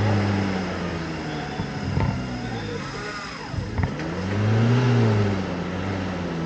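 Off-road 4x4 engine revving, its pitch rising and falling in two long surges, with a couple of sharp knocks in between.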